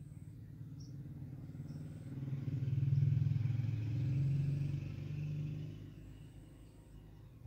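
A motor vehicle's engine passing by, swelling to a peak about three seconds in and fading away by about six seconds.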